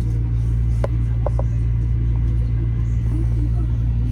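Metro-North M7A electric multiple-unit train running, heard from inside the car: a steady low rumble of wheels and traction motors with a constant low hum, and a few sharp clicks about a second in.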